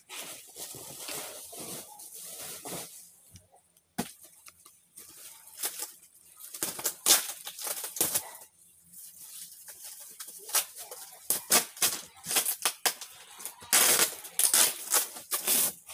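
Plastic-wrapped bales and woven sacks of clothing rustling and crinkling as they are shifted and handled, in irregular bursts that come thickest near the end.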